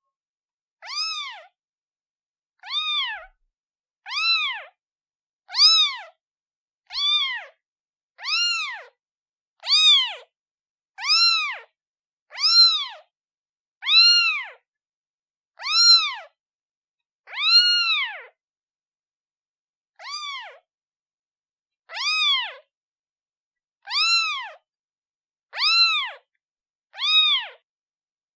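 Newborn kitten meowing over and over, calling for its mother: one short, high meow about every one and a half seconds, each rising then falling in pitch, with dead silence between.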